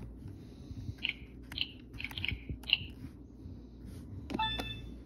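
Plastic handling noise from a toy spelling pencil with rotating letter cubes: a handful of short crunchy clicks as the plastic is moved and turned. A brief pitched sound follows about four and a half seconds in.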